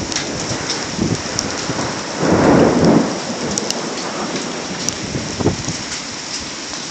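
Steady rain in a thunderstorm, with scattered sharp clicks of drops. A louder rumble of thunder lasts about a second, a couple of seconds in.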